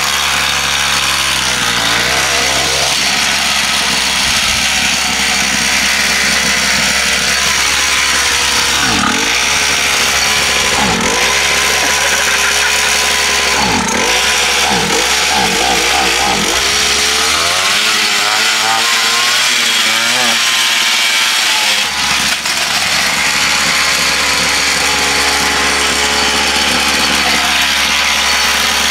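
The 50 cc two-stroke engine of a small mini motocross bike running with a high, buzzing note, its pitch dipping briefly and recovering several times.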